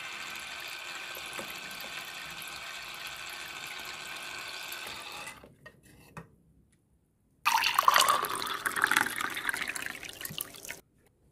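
Water running in a steady stream for about five seconds, then stopping; after a short silence it runs again louder and splashier for about three seconds and cuts off suddenly.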